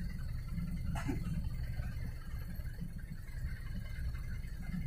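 Vehicle engine idling, a steady low rumble heard inside the cab, with a brief click about a second in.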